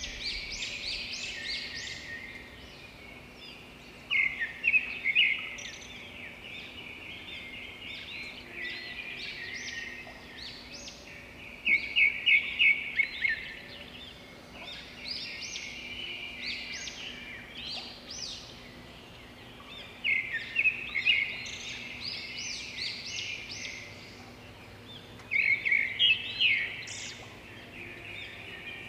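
Many small birds chirping and twittering without a break, with louder flurries of rapid chirps every several seconds.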